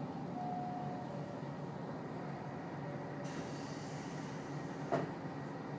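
Kiha 54 diesel railcar idling at a station stop, heard from inside the car as a steady low engine hum. About three seconds in a high hiss starts, cut off by a sharp knock near the end.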